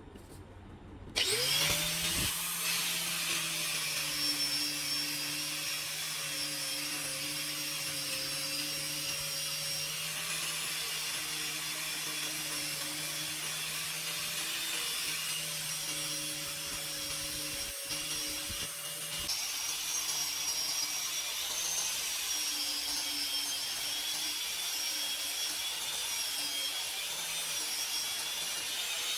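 Angle grinder motor starting about a second in, spinning up quickly, then running at a steady speed with a rasping grind against the work.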